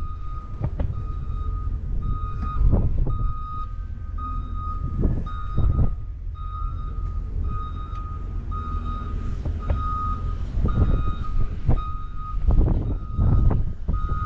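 A vehicle's backup alarm beeping steadily, about two beeps a second at one pitch, over heavy wind buffeting the microphone.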